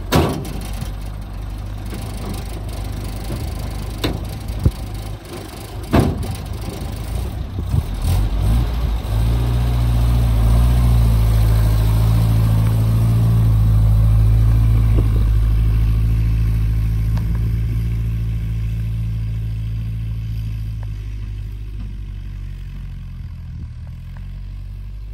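Land Rover Series 3 engine running, with a sharp knock at the start as the bonnet drops shut and two more knocks a few seconds later. About nine seconds in the engine gets louder as the Land Rover pulls away and passes close, then fades steadily as it drives off.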